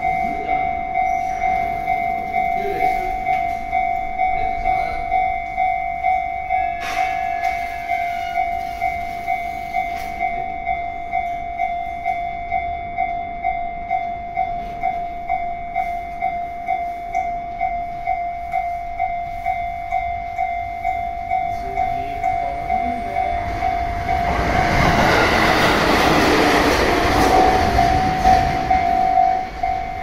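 Level-crossing warning bell ringing steadily, about two dings a second. Near the end a train passes through the crossing, and its wheel and running noise covers the bell for about five seconds.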